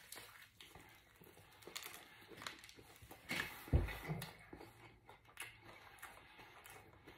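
A person biting into a hamburger and chewing it with mouth closed: faint scattered clicks and smacks, with a dull thud near the middle.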